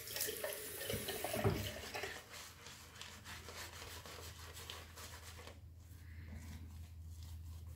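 Shaving brush swishing through wet shaving lather in soft, quick strokes, fading out about five and a half seconds in.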